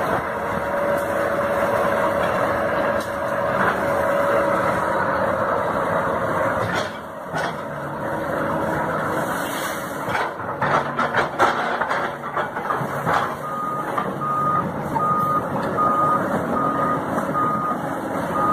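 Doosan crawler excavator working in a rushing, muddy river: steady noise of its engine and the water, with a run of knocks and clanks partway through. From about two-thirds of the way in, its travel alarm beeps steadily, about one beep every three-quarters of a second, the signal that the tracks are moving.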